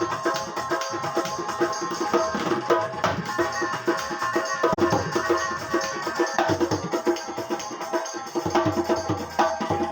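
Dholak drum sounds played on an electronic keyboard: a fast, busy rhythm of drum strokes with pitched tones, with deeper bass strokes coming in near the end.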